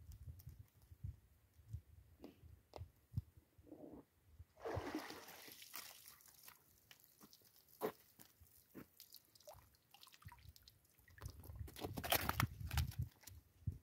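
A wire keepnet basket of caught rudd being lifted out of the water: water pours and splashes out through the mesh about five seconds in, then drips and scattered clicks and rattles follow, with a louder stretch of rattling and handling noise near the end.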